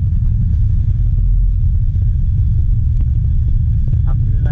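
Angkot minibus under way, a steady low rumble of engine and road noise heard from inside the cabin, with a few faint clicks.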